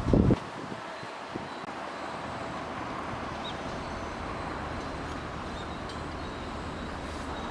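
Steady outdoor background noise, with one brief, loud low thump at the very start.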